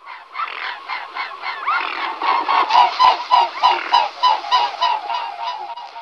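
Waterfowl honking: a rapid series of pitched nasal honks, about four to five a second, a few sliding upward, loudest in the middle and fading near the end.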